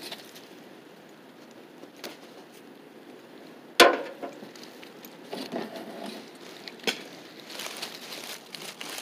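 Hand tools being handled while undoing bolts under a car: a socket ratchet and bolts give a sharp click about four seconds in, with a few fainter clicks and rustling handling noise.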